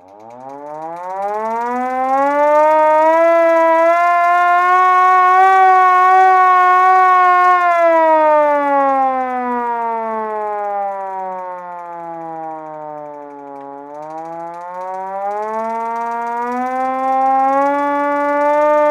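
Vintage manual fire-truck siren winding up into a rising wail, holding high for several seconds, sagging slowly down to a low growl about two-thirds of the way through, then winding back up again.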